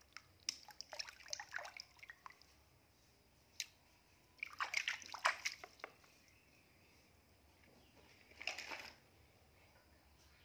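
Water being splashed and sloshed by hand in a plastic basin, with a toy fish dropped in and swished about. It comes in bouts: a spattering run in the first two seconds, the loudest splashing about halfway through, and a short splash near the end.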